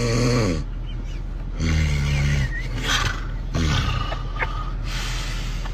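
A person snoring loudly: three rough, rumbling snores with breathy hissing between them.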